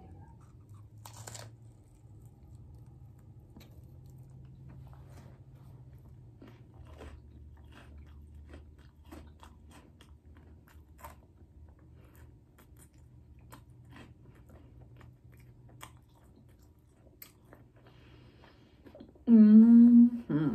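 Close-up eating sounds: chewing and crunching of tacos, with small mouth clicks and smacks. Near the end, a loud pitched voice-like sound lasting about a second.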